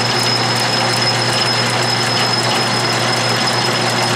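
Logan (Powercraft) 10-inch metal lathe running under power, its motor and belt drive turning the cone pulleys and spindle: a steady mechanical whir with a low hum and a constant high whine.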